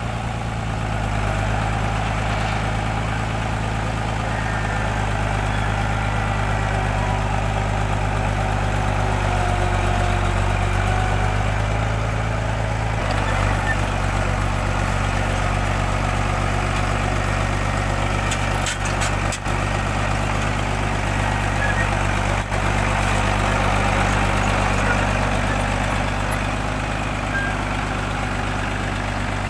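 Engine of a homemade tracked winch vehicle running steadily as the machine is driven on its crawler tracks, its note shifting slightly about halfway through. A few sharp clanks come near the middle of the run.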